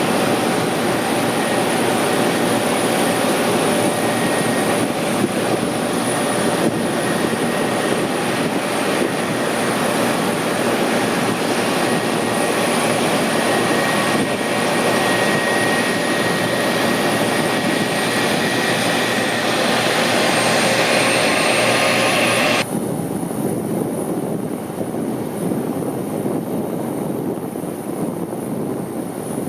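Airplane engines running with a loud, steady roar and a faint whine above it. About 23 seconds in, the sound changes abruptly to a duller, slightly quieter roar.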